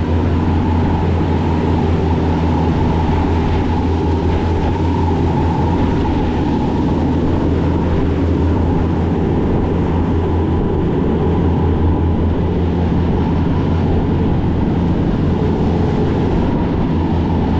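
Passenger ferry's engines running steadily at speed, a loud, even low drone, with water rushing and churning in the wake.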